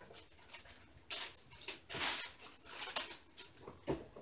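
Plastic packaging rustling and crinkling as it is handled, in short scattered bursts with quiet gaps between them.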